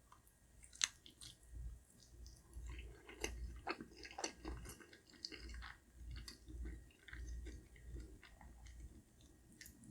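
A person chewing a mouthful of food close to the microphone, with small wet mouth clicks and smacks over a slow, regular chewing rhythm.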